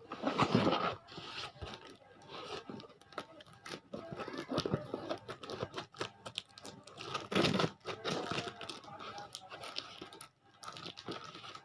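Courier parcel wrapping being torn open and crumpled, in irregular rips and crinkles, loudest near the start and about seven and a half seconds in.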